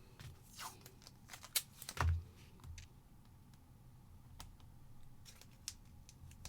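Scattered light clicks and taps of small craft pieces being handled and set down on a work surface, with a soft thump about two seconds in.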